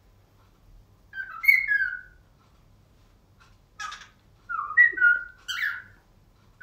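Cockatiel whistling: two short phrases of clear notes stepping up and down in pitch, about a second in and again around five seconds, with a brief harsh chirp between them.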